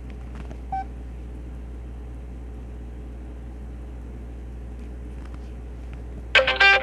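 Casio G'zOne flip phone on its ringtone menu: a short key beep about a second in and a few faint button clicks over a steady low hum, then near the end a ringtone melody starts playing loudly from the phone's speaker.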